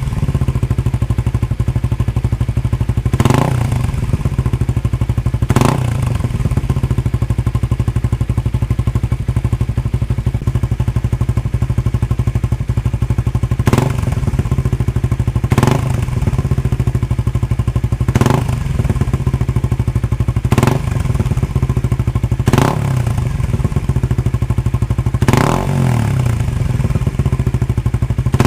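Suzuki Raider R150 Fi's single-cylinder four-stroke engine idling through an aftermarket RacingLine exhaust, with a short sharp burst every two to three seconds. It is revved near the end.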